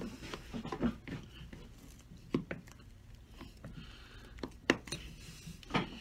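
A hand tool prying a plastic heel block off a cowboy boot's heel: a handful of sharp, separate clicks and knocks with quiet between, the loudest about three-quarters of the way in.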